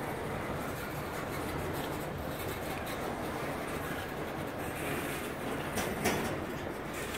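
Double-stack intermodal container well cars rolling past with a steady rumble of wheels on rail. A couple of sharp clanks come about six seconds in.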